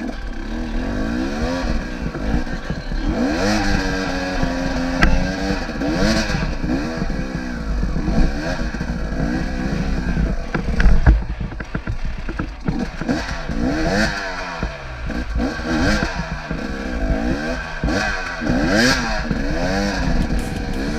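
Dirt bike engine revving up and down over and over as it is ridden on an off-road trail, with a few sharp knocks along the way.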